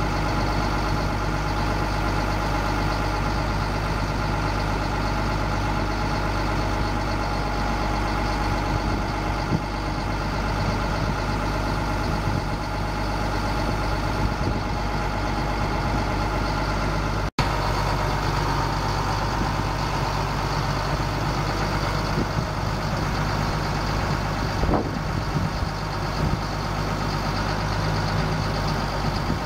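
Caterpillar 3126 six-cylinder turbo diesel idling steadily with the PTO engaged, driving the hydraulic pump for the Hiab knuckle-boom crane as the boom is unfolded from its control valve levers; a steady whine sits over the engine.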